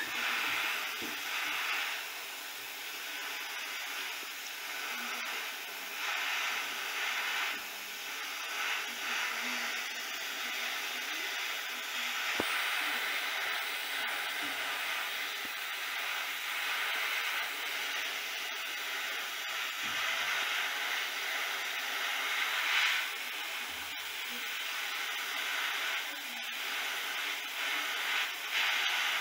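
Airbrush spraying black primer: a steady hiss of compressed air whose level rises and falls a little as the spraying goes on.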